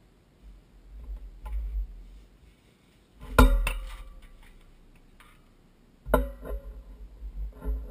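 Metal pipe and fittings being handled at a well tank's pipe tee: a sharp metallic clank a little over three seconds in with a short ring, then another clank around six seconds followed by lighter knocking and rattling.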